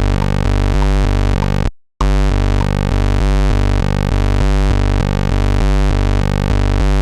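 Chiptune-style pulse-wave (duty-cycle) synthesizer playing a quick pattern of low notes, breaking off for a moment just before two seconds in and then starting the pattern over.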